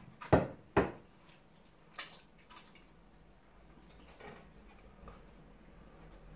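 Eating sounds from people eating pounded yam with egusi soup by hand: two loud sharp smacks within the first second, then a few fainter clicks and smacks.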